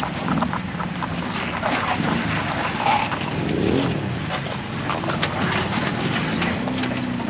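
Off-road vehicle engine running, its revs rising and falling, with scattered knocks and clicks throughout.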